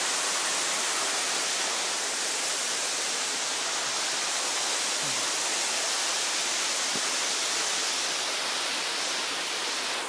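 Bambarakanda Falls: a steady rushing hiss of water falling down the cliff into its plunge pool.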